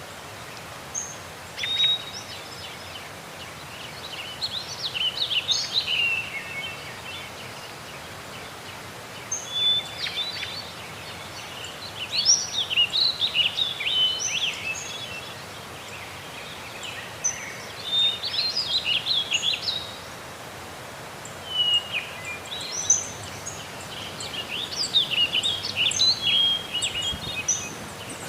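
Songbirds singing in bursts of quick chirps and trills every few seconds over a steady background hiss.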